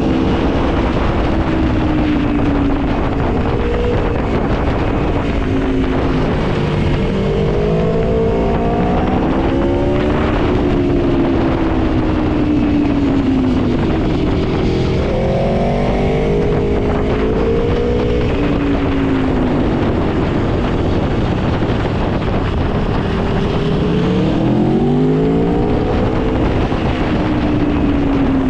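Aprilia Tuono V4 motorcycle's V4 engine under way, its pitch rising and falling several times as it is revved through the gears, over a steady rush of wind noise.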